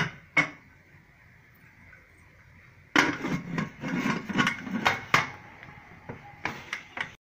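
Aluminium pressure cooker being closed: a few clicks at the very start, then a rapid run of metal knocks and clatters about three seconds in as the lid goes on and is locked. A few more knocks come near the end, with a hand at the whistle weight.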